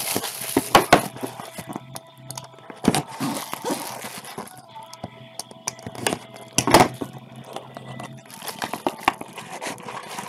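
Plastic shrink wrap crinkling and tearing as a sealed trading-card box is unwrapped, then a pocket-knife blade slitting the box's seal. Scattered clicks and rustles come from handling the box and cards.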